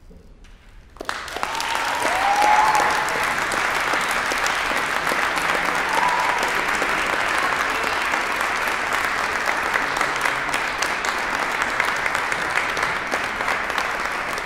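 Audience applause breaks out suddenly about a second in, as the ensemble's last note fades, and carries on steadily.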